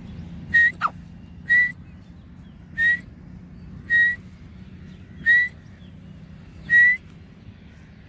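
Grey francolin calling in a series of six short, high whistled notes, each rising slightly at its end, spaced about a second apart, with a quick downward-sliding whistle just after the first note.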